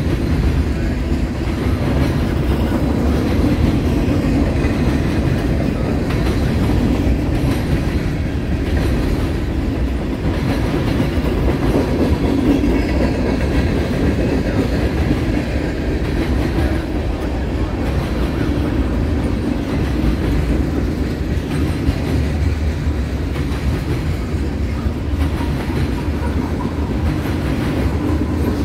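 Freight cars of a long mixed freight train rolling past: the steady rumble and clickety-clack of steel wheels on the rails.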